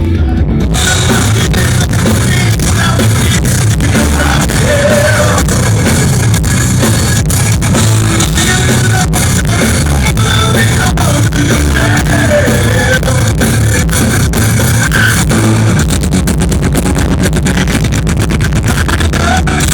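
A progressive metal band playing loud, live, with the whole band sounding from about a second in.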